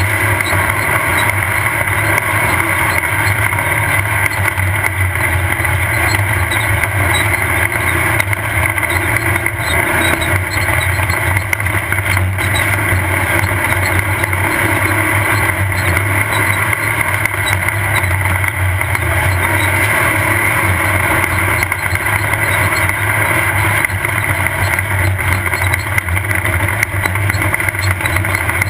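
Off-road race car's engine running steadily under load at racing speed, heard from an onboard camera, mixed with continuous rumble and rattle from the rough ground.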